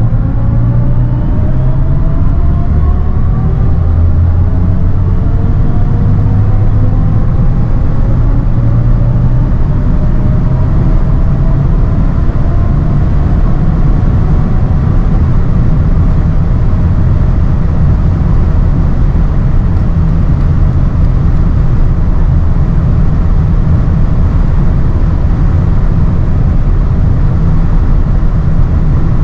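BMW i7 xDrive60 electric sedan heard from its cabin at high autobahn speed: steady, heavy road and wind noise. Over roughly the first half, a set of faint tones rises slowly in pitch as the car accelerates, then fades as it levels off near its top speed of about 246 km/h.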